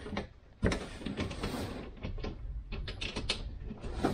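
Gloved hands pushing and rubbing against a car's plastic engine undertray, creaking and scraping, with a sudden knock about half a second in.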